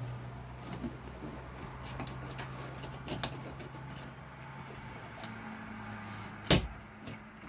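Scattered light clicks and knocks of an old plastic RV ceiling light fixture being pried loose from the ceiling, with one sharp knock about six and a half seconds in, over a steady low hum.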